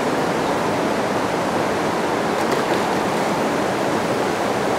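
Steady rush of flowing river water, with a few faint ticks about halfway through.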